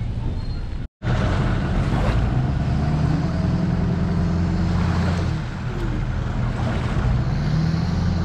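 A steady low engine hum of an engine idling, with wind noise on the microphone. The sound cuts out for a moment about a second in.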